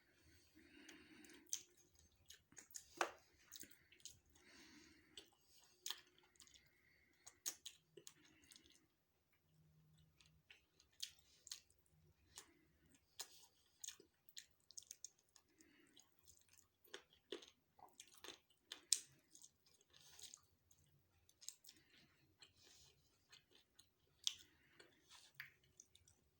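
Close-miked chewing and eating, with many short wet mouth clicks and smacks scattered irregularly throughout.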